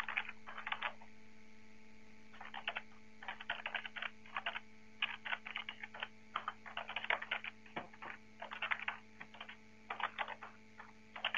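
Computer keyboard typing in irregular bursts of keystrokes, over a faint steady electrical hum.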